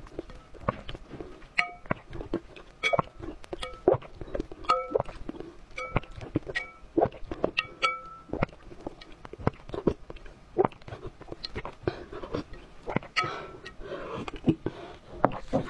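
Close-miked slurping and sucking of egg yolks off a metal spoon, with the spoon repeatedly clinking against a large ceramic bowl; several clinks ring briefly. Near the end, longer wet slurps.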